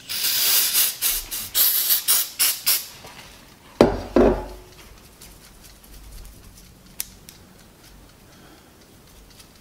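Aerosol can of electronic contact cleaner spraying onto a transistor radio's circuit board and switch contacts in a quick run of short hissing bursts for about three seconds. A sharp knock follows about four seconds in, then only faint handling sounds.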